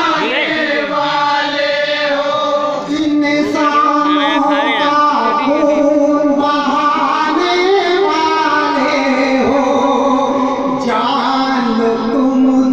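A man singing an Urdu devotional kalam into a microphone, with long held notes whose pitch wavers.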